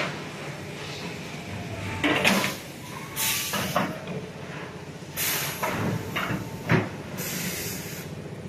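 Heavy steel-coil leveling and cut-to-length line running: a steady low machine hum with about four short bursts of hiss, the first about two seconds in.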